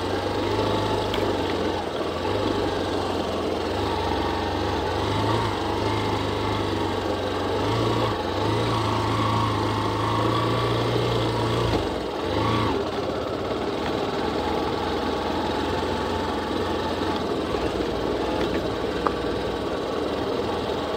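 Motorcycle engine running steadily on a dirt track. Its low hum dips away about twelve seconds in, then carries on at a lower level.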